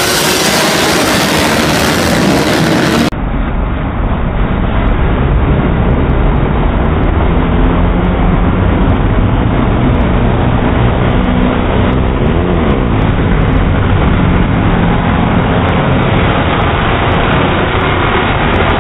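A pack of racing ATVs running at speed, their engines blending into one dense, steady drone. About three seconds in the sound turns abruptly duller, with a deep rumble underneath.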